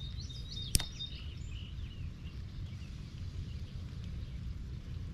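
Steady low outdoor rumble with a few short bird chirps in the first second or so, and one sharp click, the loudest sound, about three-quarters of a second in.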